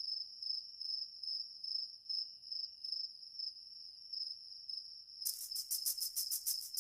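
Crickets chirping: a steady high trill, joined about five seconds in by a louder, rapid pulsing chirp.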